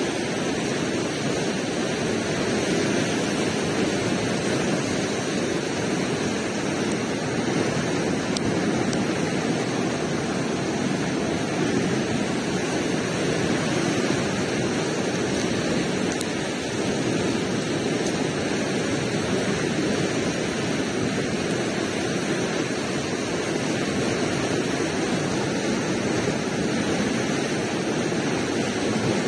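Steady, even rushing noise with no separate sounds in it, unchanging throughout.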